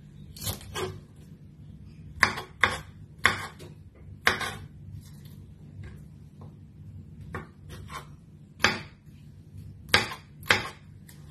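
About a dozen irregular knocks and clinks of kitchen utensils against a cutting board or dishes, over a steady low hum.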